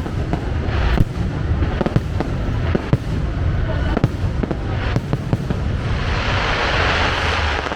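Fireworks going off in rapid succession: many sharp bangs over a constant low rumble, with a dense stretch of crackling shells near the end.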